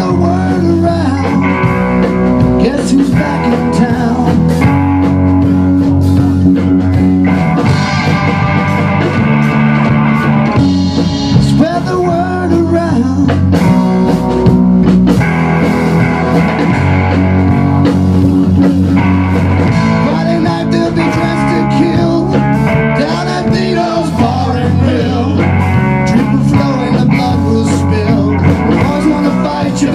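Rock band playing live: electric guitar, electric bass and drum kit, in a bluesy rock groove.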